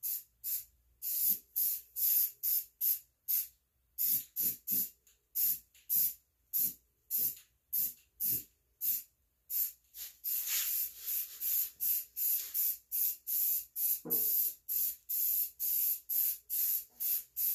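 Aerosol can of primer spraying in short hissing bursts, about two a second, with a few longer, steadier sprays about ten seconds in.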